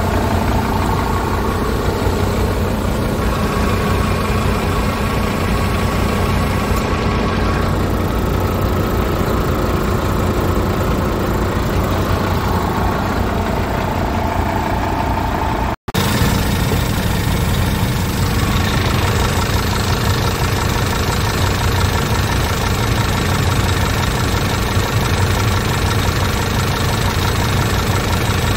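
Scania P280's 9-litre five-cylinder diesel engine idling steadily, heard close up at the open engine bay. The sound drops out for an instant a little past halfway.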